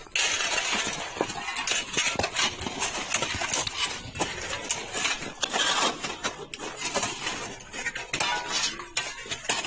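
Several metal shovels digging, chopping and scraping into hard-packed avalanche snow and ice: a busy, continuous run of overlapping scrapes, crunches and knocks.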